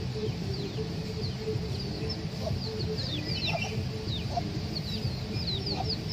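A chick peeping over and over in short, high, falling notes, with a hen giving short low clucks now and then, over a steady low background rumble.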